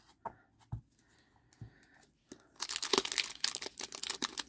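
Foil Pokémon booster pack wrapper being torn open by hand, crinkling and ripping loudly from a little past halfway, after a few light clicks and taps.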